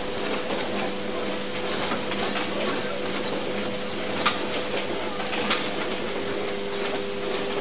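Assembly machines on a semiconductor factory floor running: a steady hum with irregular mechanical clicks and ticks, and another steady tone joining about six seconds in.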